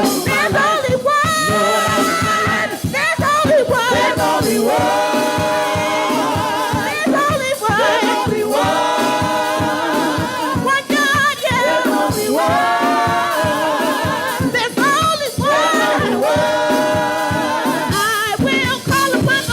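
Gospel praise team singing with a band, lead and backing voices with vibrato over a steady beat.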